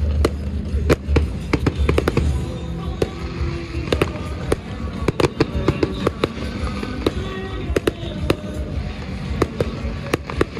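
Fireworks going off in quick succession, many sharp bangs and crackles several a second. Music plays underneath, with a heavy bass in the first second or so.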